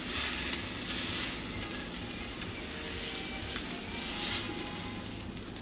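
Fish pieces sizzling in hot oil in a cast-iron skillet. The sizzle swells about four times as tongs turn and lift the pieces.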